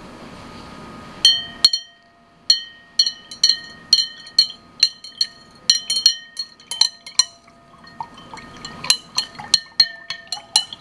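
Glass beaker clinking as its liquid is stirred: sharp glass-on-glass taps, each leaving a short bell-like ring. They begin about a second in, come roughly two a second with a pause past the middle, and grow quicker near the end.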